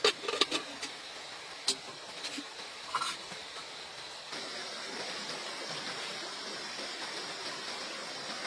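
Several light clicks and clatters in the first few seconds over a steady rushing noise like running water, which grows a little louder about four seconds in.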